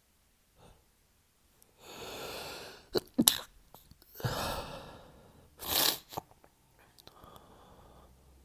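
A man's stifled sneezes during a sneezing fit. A long breathy intake is followed about three seconds in by a sharp, held-in sneeze, then a long breath, and a second stifled sneeze about six seconds in.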